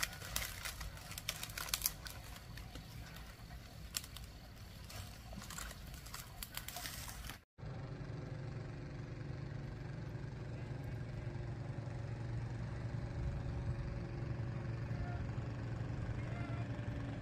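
A fire crackling and snapping in dry leaves and sticks. After an abrupt cut about seven seconds in, a steady low rumble.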